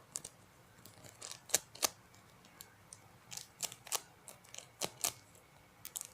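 A homemade squishy being handled and squeezed, with about a dozen irregular sharp crinkles and clicks.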